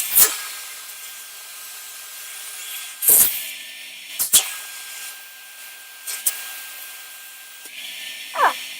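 Vacuum cleaner running with a steady whine, its nozzle rubbing and scraping against a beard in about five loud bursts.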